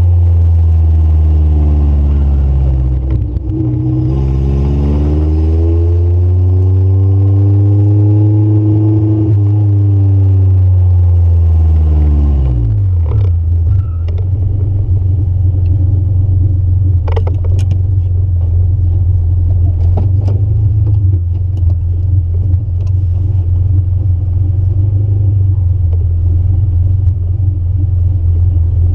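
Honda Civic EF sedan's engine heard from inside the cabin, its pitch rising and falling as the car drives and slows over the first dozen seconds or so, then settling into a steady idle once the car stops. A few sharp clicks sound during the idle.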